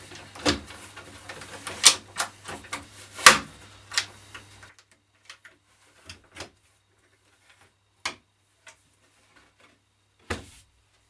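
A series of sharp clicks and knocks, like tools and boards being handled on a workbench, over a steady low hum. The hum cuts off abruptly about halfway through, and only a few scattered fainter clicks follow.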